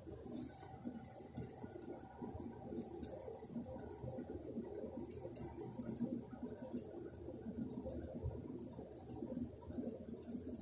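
Faint rustling with scattered small clicks, typical of a handheld phone being moved about.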